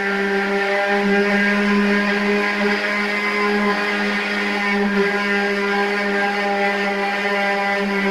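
Steady motor hum with one clear pitch, unchanging in level or pitch.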